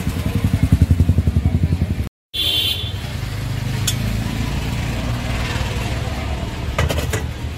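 A vehicle engine running close by, with a rapid low pulsing that grows louder over the first two seconds. The sound cuts out for a moment about two seconds in, then a steadier low engine hum continues with a few light clicks.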